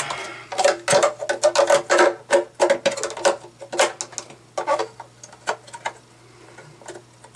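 Hard plastic clicking, knocking and rattling as an AquaClear hang-on-back filter's housing and parts are handled and fitted together: a quick run of sharp clicks over the first few seconds, thinning to faint handling noise after about five seconds.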